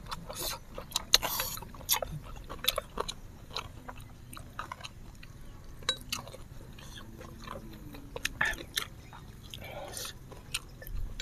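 Close-miked eating: wet chewing and slurping of instant noodles, with a string of short, irregular smacks and clicks.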